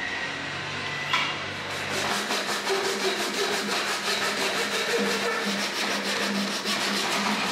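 Hand saw cutting lengthwise into the end of a wooden shaft, a steady run of rasping strokes that starts about two seconds in.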